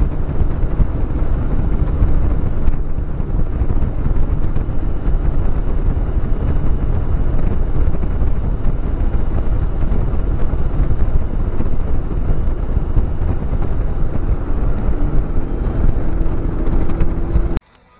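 Boat running at speed on its outboard motor, a steady rush of engine and hull noise with heavy wind buffeting the microphone. It cuts off suddenly near the end.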